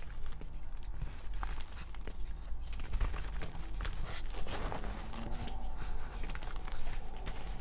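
Reformed gym chalk discs being crushed and crumbled by hand over loose chalk powder: a run of small crunches and snaps, with a denser gritty sifting of powder about halfway through.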